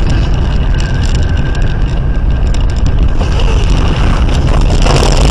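Car engine and road noise heard from inside the cabin, a steady heavy low rumble. Near the end a loud rushing hiss comes in as the car runs off the road into the snowbank.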